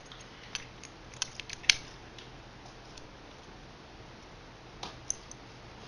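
A few scattered light clicks and taps over a low steady hum, most of them in the first two seconds and two more near the end.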